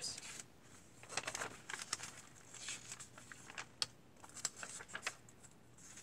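Paper rustling with scattered light clicks and taps as the pages of a handmade paper junk journal are handled and turned.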